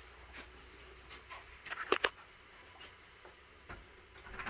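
Quiet room tone broken by a few light clicks, with two sharper clicks close together about two seconds in and a brief rustle near the end.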